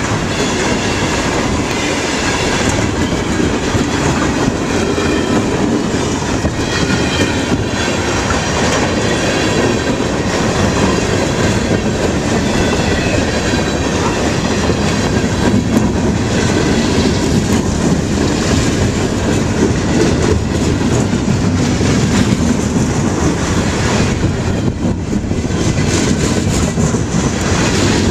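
Freight train cars, tank cars then boxcars, rolling past close by: steady rumble and clickety-clack of steel wheels over the rail joints, with some high-pitched wheel squeal in the first part.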